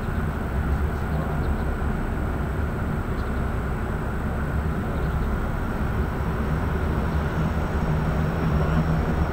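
Antonov An-26's twin turboprop engines running on the ground, a steady low drone.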